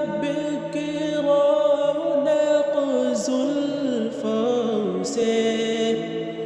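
A voice singing an Islamic gojol (devotional song) in long, wavering held notes.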